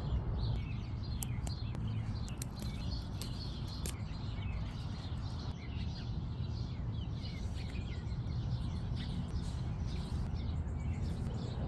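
Small songbirds chirping again and again over a steady low rumble of outdoor background noise.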